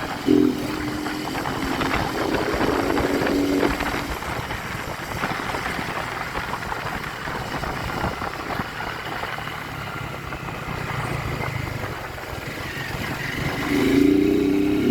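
Motorcycle running along a street, with road and wind noise. A steady droning tone comes in suddenly right at the start for about four seconds and returns near the end.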